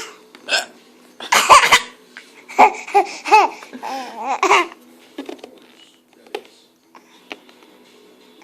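A woman hiccuping and a baby laughing at it. The loudest burst comes about a second and a half in, followed by a quick string of short baby laughs that rise and fall over the next two seconds.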